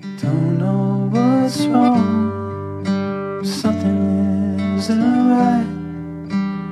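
Background music: a song with strummed acoustic guitar.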